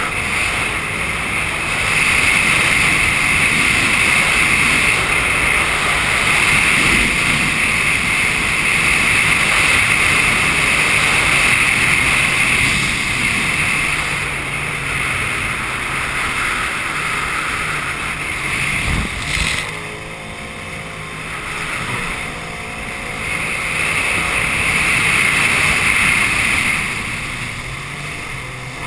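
Jet ski engine running at speed, with water rushing under the hull and wind on the microphone. The engine eases off briefly about two-thirds of the way in and again near the end.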